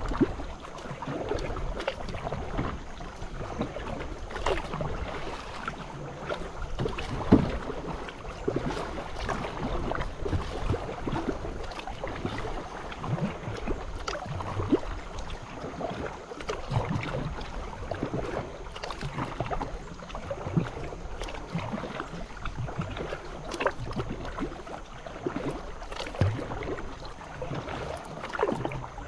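A paddle dipping and pulling through shallow creek water from a small paddled boat, giving repeated irregular splashes and drips over a steady watery background, with one louder hit about seven seconds in.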